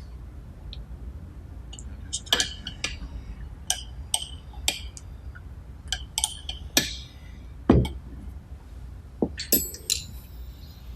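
Small steel parts and hand tools clinking and clacking against each other and the bench, in irregular sharp clinks with a brief ring, and one heavier knock about three-quarters of the way through.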